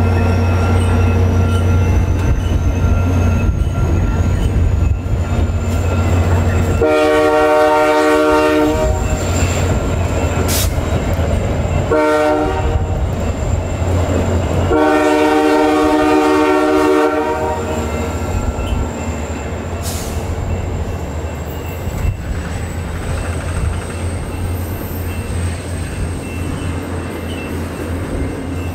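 VIA Rail passenger train hauled by EMD F40PH-2 diesel locomotive 6428 pulling out, with a steady low rumble as the coaches roll by. The locomotive's multi-chime horn sounds three times, long, short, long, starting about seven seconds in. After the last blast the rumble drops off as the train draws away.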